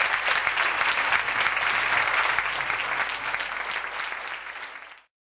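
Audience applauding with dense clapping, fading over the last couple of seconds and cutting off abruptly near the end.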